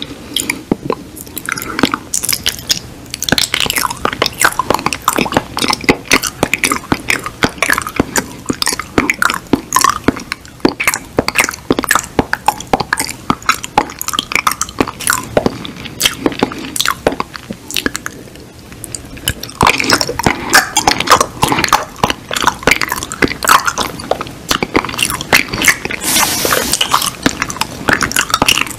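Close-miked ASMR mouth sounds: a dense run of lip smacks, mouth clicks and chewing noises from a man chewing with an empty mouth, miming eating air. A breathy hiss comes in near the end.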